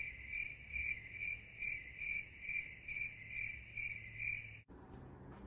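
Cricket chirping, an even pulse of about two and a half chirps a second that cuts off abruptly near the end. It is dropped in as a 'crickets' sound effect, starting and stopping at hard edits.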